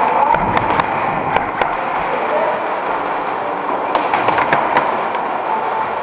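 Airsoft guns firing, heard as short runs of sharp clicks (a couple in the first two seconds, a quicker cluster about four seconds in), over a steady echoing din of a large hall with distant voices.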